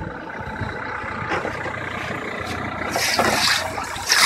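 Komatsu backhoe loader's diesel engine running steadily, with a louder hissing rush about three seconds in and a short one near the end.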